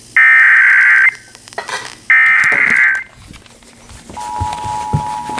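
Emergency Alert System SAME header for a Civil Emergency Message: two loud bursts of warbling digital data tones, each about a second long with a second's gap, the last two of the header's three repetitions. About four seconds in, the steady two-tone EAS attention signal begins.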